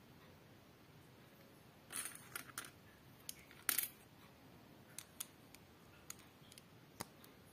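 Small plastic LEGO bricks clicking and clattering as they are handled, picked from a pile and pressed together: a cluster of clicks about two seconds in, the sharpest click near the middle, then a few light single clicks.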